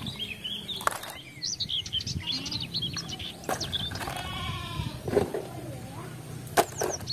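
Small plastic toy vehicles knocking and clattering as they are gathered into a plastic basket, with sharp knocks about a second in, near the middle, and a pair near the end. Birds chirp in the background.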